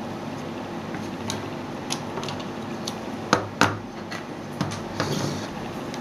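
Hard plastic network cable tester units being handled and set down on a wooden desk: scattered light clicks, with two sharp knocks close together a little past halfway.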